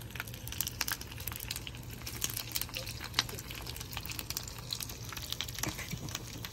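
Food frying in a pan: scattered light crackles and pops of hot oil, over a steady low hum.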